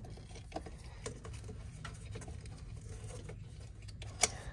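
Faint, scattered taps and clicks of hands handling wiring and small tools, with one sharper click near the end, over a steady low hum.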